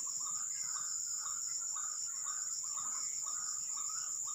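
White-breasted waterhen calls repeating about twice a second, over a steady high-pitched insect drone.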